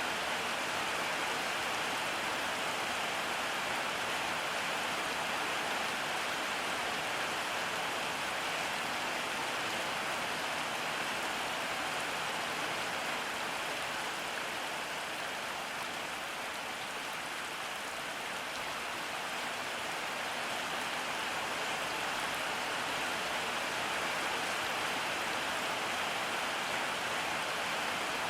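Steady rain falling, an even hiss of rain on surfaces that eases slightly about halfway through.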